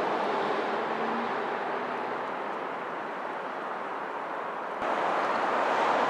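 Steady outdoor background rush, with no distinct pecking taps standing out; the noise jumps suddenly louder a little before the end.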